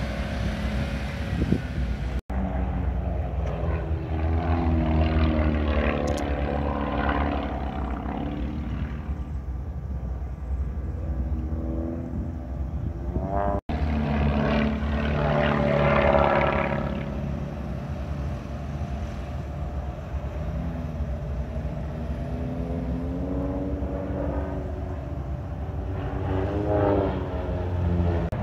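Propeller aerobatic airplanes flying overhead, their engine note sweeping up and down in pitch as they pass, over a steady low drone. The sound swells loudest about five and sixteen seconds in, and cuts out for an instant twice.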